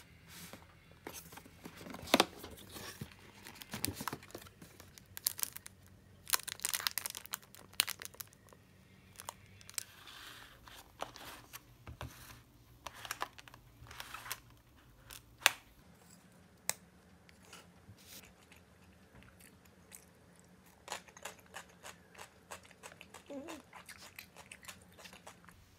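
Close handling sounds of a paper box, clear plastic takeaway salad containers and wooden chopsticks: scattered short clicks, taps and crinkling rustles.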